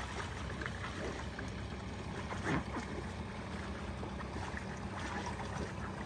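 Lake water sloshing and splashing around a person wading waist-deep while shoving foam float strips under a boat lift frame, with one brief louder sound about two and a half seconds in.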